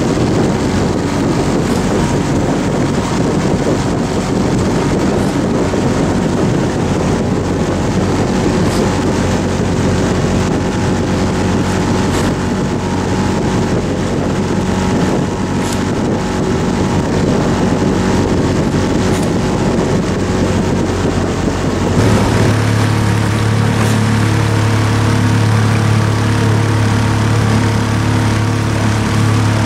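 Motorboat outboard engine running steadily, with wind and water noise. About 22 seconds in the sound changes suddenly to a steadier, stronger low engine hum.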